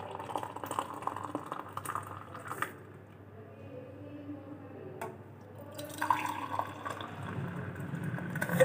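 Hot milky chai poured from a steel pan through a metal tea strainer into cups, liquid splashing and trickling. It comes in two spells, with a quieter pause in the middle as the pan moves between cups.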